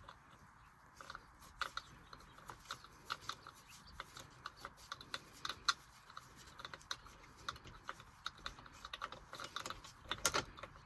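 Faint, irregular light mechanical clicking, typical of a ratchet wrench backing off the loosened steering-wheel retaining nut. A louder cluster of clicks comes near the end.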